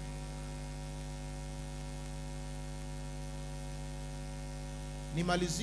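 Steady electrical mains hum: a constant low buzz with a stack of evenly spaced tones above it. A man's voice starts again near the end.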